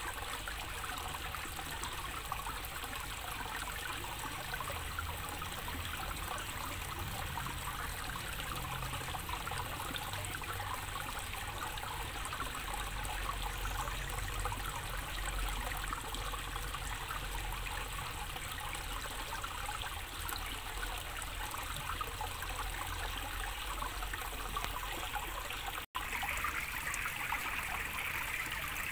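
Water falling from a spout and trickling steadily into a small planted pond. About 26 seconds in the sound breaks off for an instant and changes to a brighter, higher splash of water dripping from a plastic pipe onto the pond surface.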